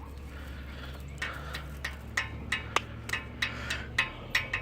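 A low steady hum, then from about a second in an irregular run of short, sharp clicks, roughly three a second.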